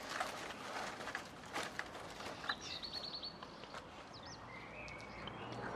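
Side cutters snipping chicken-wire mesh, a scattered series of sharp clicks as the wire is cut. A bird chirps a quick run of high notes about halfway through, with a couple more short calls after it.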